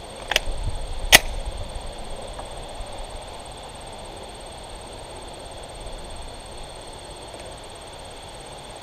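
Two sharp metallic clacks within the first second or so as a Glock 19 pistol is loaded, the second much louder, typical of a magazine being seated and the slide going forward to chamber a round. Then only faint background while the pistol is aimed.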